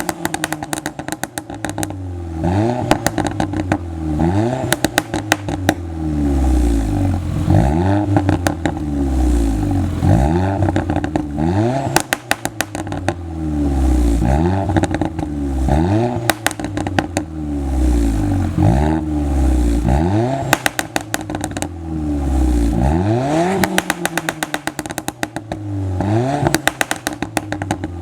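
Alfa Romeo Giulietta Quadrifoglio Verde's turbocharged four-cylinder, through a Ragazzon exhaust with pop-and-bang software, revved again and again, about once every two seconds or so. Each time the revs fall, the exhaust crackles with a rapid string of pops and bangs.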